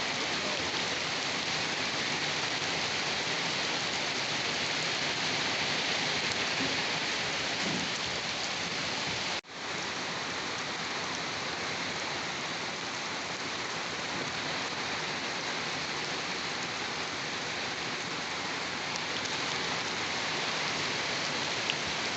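Steady, heavy rain falling, an even hiss of drops with no thunder. It drops out for a split second about nine seconds in, then resumes unchanged.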